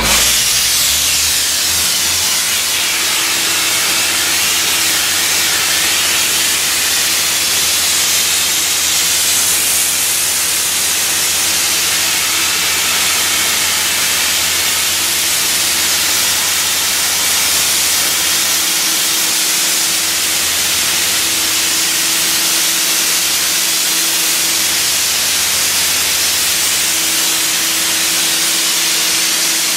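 High-pressure dry ice blasting nozzle hissing steadily and loudly as it strips old paint from a ceiling, with a faint low hum underneath.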